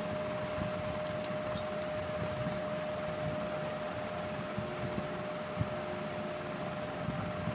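Steady hiss and hum with a constant mid-pitched tone, like a fan or other small machine running, with a few faint light clicks about a second in.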